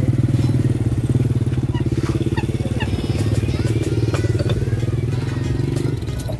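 A vehicle engine idling steadily, a rapid even low pulse, easing off slightly about six seconds in.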